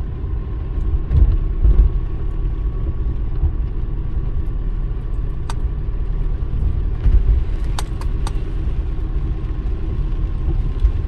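Car driving on wet streets, heard from inside the cabin: a steady low rumble of engine and tyres, with a few sharp clicks about halfway through and again a couple of seconds later.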